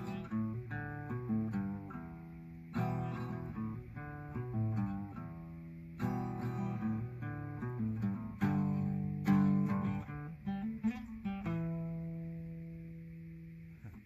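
Acoustic guitar playing: strummed chords with single notes picked between them, ending on a chord that rings out and fades.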